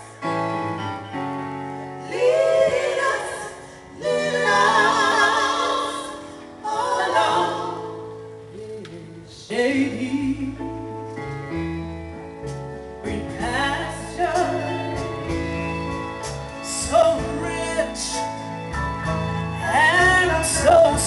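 Gospel group singing with band accompaniment: women's and men's voices in sung phrases over a bass line and keyboard.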